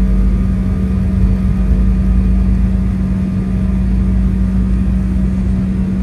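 A vehicle engine running at a steady speed: a constant hum over a low rumble, with no change in pitch.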